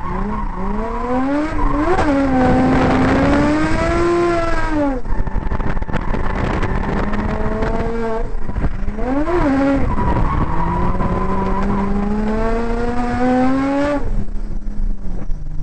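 Drift car's engine heard from onboard, revs held high and swinging up and down through a slide, with tyres squealing. About midway the revs spike sharply twice, then climb steadily for several seconds before dropping suddenly to a low steady note near the end.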